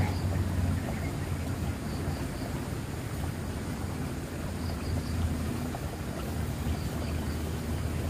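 Outdoor ambience beside a swollen, fast-flowing muddy ditch: a steady rush of water under a low rumble that swells and fades, with a few faint high chirps.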